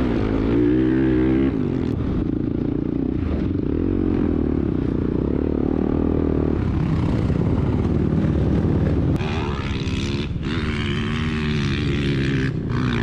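Dirt bike engine running under throttle, its pitch rising and falling as the rider works the throttle and gears. A higher-pitched whine joins from about nine seconds in until near the end.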